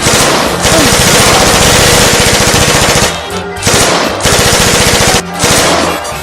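Rapid automatic machine-gun fire: one long unbroken burst of about three seconds, then several shorter bursts with brief pauses between them.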